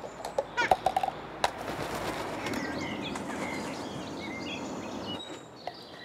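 Jackdaw at an upturned cup on a plastic garden table: a quick run of sharp knocks and taps in the first second and a half, then about three seconds of rustling that fades out. Small birds chirp thinly in the background.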